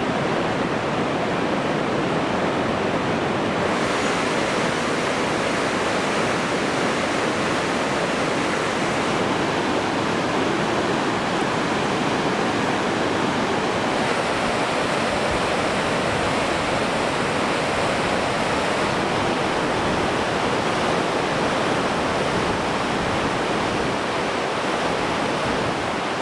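Fast-flowing mountain water rushing steadily, like a torrent or waterfall, with no breaks or separate events.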